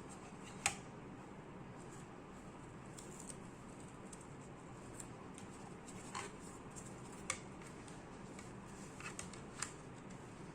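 A few sharp clicks and taps from handling a 2.5-inch hard drive and a plastic hard-drive enclosure, the loudest about a second in and the rest spread through the second half, over a faint steady hum.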